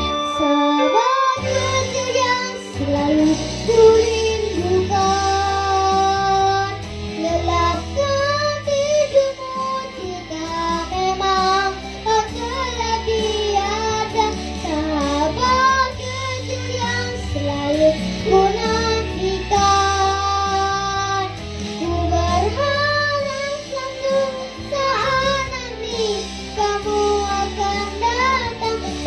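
A singer practising a pop ballad over a backing track with guitar and bass, holding long notes with a wavering vibrato. The singer has a cough and a cold.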